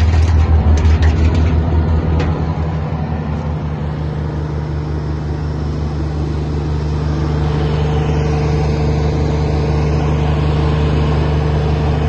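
Jensen wood chipper running, with sharp cracks of branches being chipped over the first couple of seconds. After that it runs steadily with nothing in the feed.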